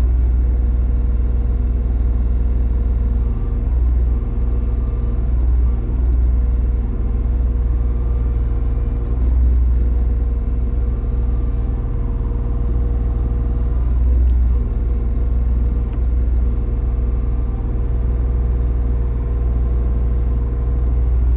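Backhoe loader's diesel engine running steadily, a low rumble.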